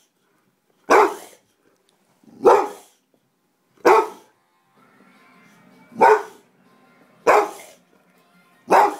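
Boxer dog barking: six loud single barks, about a second and a half apart.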